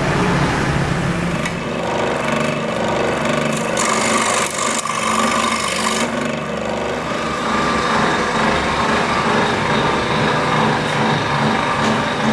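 Small bench saw running and cutting thin wooden strips, a rasping hiss that is strongest in the first half and drops off abruptly about six seconds in.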